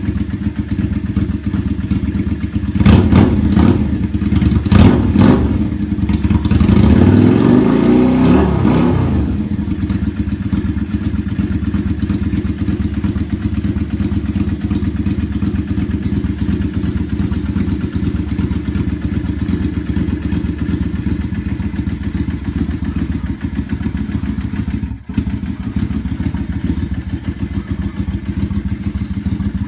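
Yamaha Drag Star 400 Classic's V-twin engine running, after standing unstarted for a month. It is blipped sharply twice early on, then revved up and back down, and settles into a steady idle.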